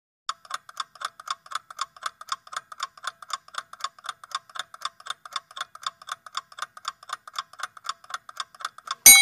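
Countdown-timer sound effect: a clock ticking evenly, about four ticks a second, then a loud bell ding near the end that rings on as the time runs out.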